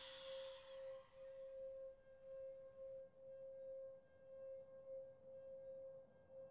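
Faint soundtrack drone: one sustained, pure-sounding tone that pulses gently in loudness, with fainter higher tones above it.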